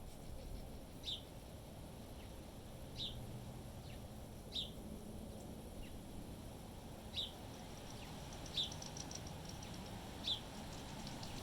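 A bird repeating a single short, high chirp about every couple of seconds, six times, over the low rumble of wind on the microphone.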